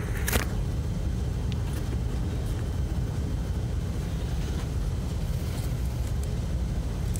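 Steady low rumble, with a sharp click just after the start and a few faint clicks later on.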